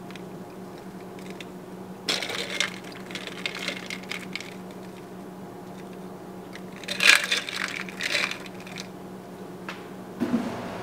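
Ice cubes clinking against the glass as a straw stirs a glass of iced coffee, in two spells: about two seconds in and again about seven seconds in.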